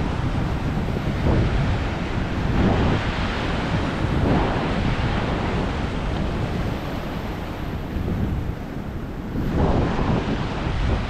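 Ocean surf: waves breaking and washing up the beach in repeated swells, with wind buffeting the microphone. A bigger wave breaks near the end.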